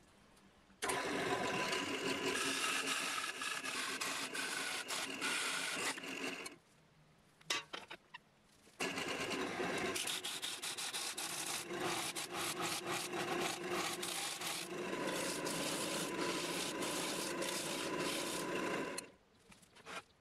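Turning tool cutting into a pine and epoxy resin bowl spinning on a wood lathe: a steady scraping hiss with faint steady tones under it. It starts about a second in and breaks off for about two seconds in the middle, with a few clicks in the gap, then resumes and fades near the end.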